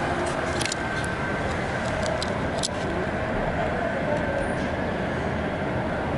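Steady hum of city street traffic, with a few faint clicks.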